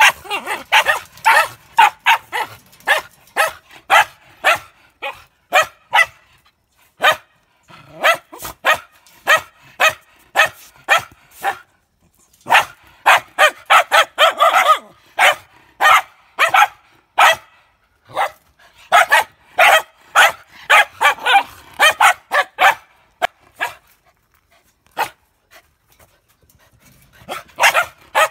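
Small white spitz-type dogs barking in quick, high-pitched runs of short barks. The barking pauses briefly about midway and again for a few seconds near the end.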